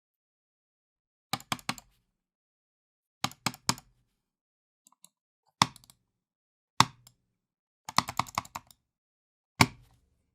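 Computer mouse clicked hard and roughly, as in anger: quick runs of three or four sharp clicks alternating with single heavier clicks, with short pauses between the groups.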